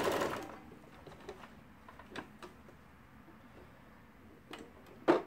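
Brother XL4010 sewing machine stitching a wide zigzag, stopping about half a second in. Then only a few faint clicks, and one sharp click near the end.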